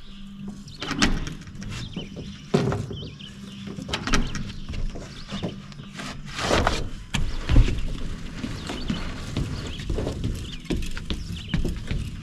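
Handling noise on a roof deck: irregular knocks, scuffs and scrapes, with a long rustling swish of the underlayment sheet about six and a half seconds in, followed by a dull thud.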